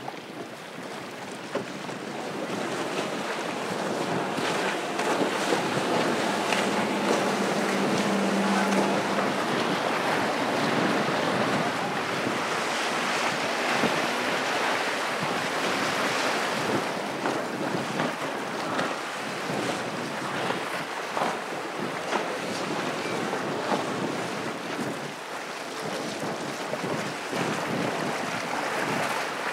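Several outboard-powered center-console boats passing one after another at speed: engine drone mixed with the rush of hull spray and wake, with wind buffeting the microphone. A steady engine tone stands out for a couple of seconds about a quarter of the way in.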